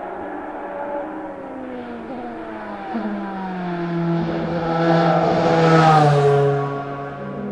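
Audi A4 DTM R14 Plus racing car's naturally aspirated 4.0-litre V8 driving past close by. The engine note falls in pitch as it approaches and goes by, is loudest a little over halfway through, then drops away.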